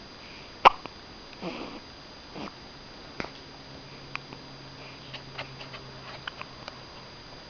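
A baby hiccuping: one sharp, loud hiccup a little under a second in, followed by soft little breathy sounds and several fainter clicks.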